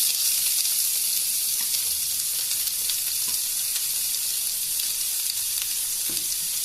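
Freshly added chopped onions sizzling in hot oil with tempered mustard seeds and urad dal in a kadai: a loud, steady hiss that eases slightly as the onions begin to soften.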